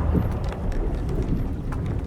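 Old wooden sailing ship creaking and knocking, over a steady low rumble of wind and sea.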